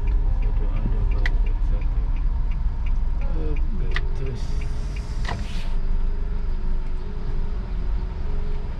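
Steady low rumble of a car engine and tyres heard inside the cabin while the car creeps into a parking space, with a few sharp clicks and a short hiss about halfway through.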